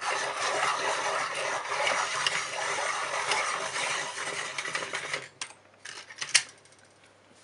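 A warm grey Faber-Castell Polychromos coloured pencil being sharpened in a pencil sharpener: a steady grinding of the blade shaving the wood and lead for about five seconds, which then stops. A few light clicks follow, with one sharper click near the end.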